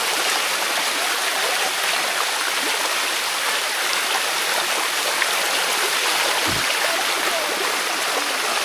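Water rushing steadily down the limestone cascade of a waterfall, close by. A single brief low thud comes about two-thirds of the way through.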